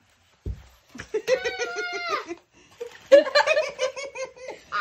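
High-pitched giggling in two runs of quick pulsing laughter, with a dull bump about half a second in.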